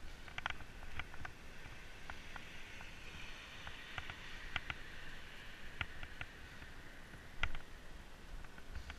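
Mountain bike rolling on an asphalt path: a low rumble with scattered sharp clicks and rattles from the bike, and one louder knock about seven and a half seconds in.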